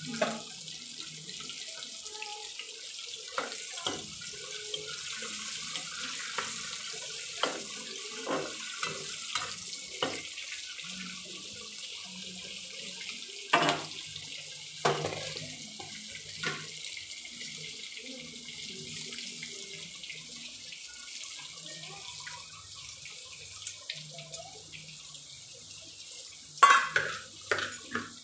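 Chopped vegetables frying in oil in a metal kadai: a steady sizzling hiss, with scattered clinks and knocks of a utensil against the pan. The loudest knocks come near the middle and near the end.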